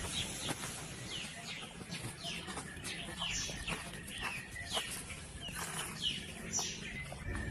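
Birds calling: a steady series of short, high calls, each sliding downward in pitch, over a low background rumble.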